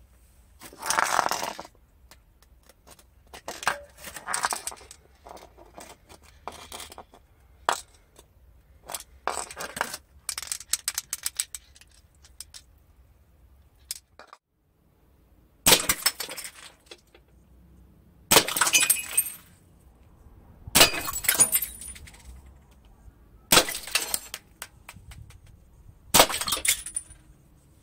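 Steel BBs from a Snow Wolf M24 spring airsoft sniper rifle hitting green glass beer bottles: five sharp shots about two and a half seconds apart, each with glass shattering, in the second half. Before them come scattered clinks and knocks of empty steel beer cans being handled on a tiled floor.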